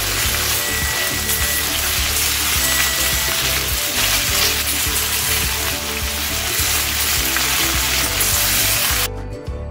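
Chicken sausages with sliced onion and green pepper sizzling in butter and olive oil in a stainless steel sauté pan, with background music underneath. The sizzle cuts off suddenly near the end, leaving only the music.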